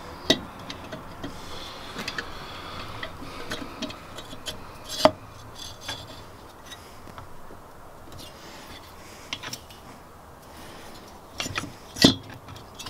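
Small metallic clicks and light knocks of a cylinder barrel and piston being handled over the crankcase studs and connecting rod of a VW Beetle air-cooled engine, with a sharper knock about five seconds in and the loudest one near the end.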